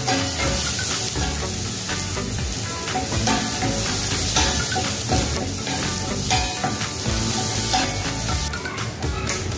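Chopped onion sizzling as it fries in a stainless steel saucepan, stirred now and then with a wooden spatula that scrapes and knocks against the pan.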